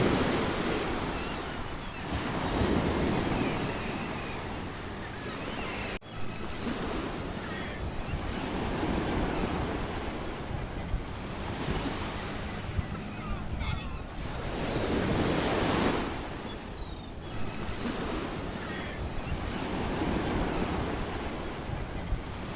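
Sea waves surging and breaking against rocks, swelling into louder washes every few seconds, with wind buffeting the microphone.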